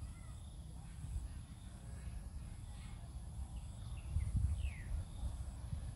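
Outdoor field ambience: wind buffeting the microphone, with a few faint bird chirps, one a quick falling whistle near the end, over a steady high insect hum.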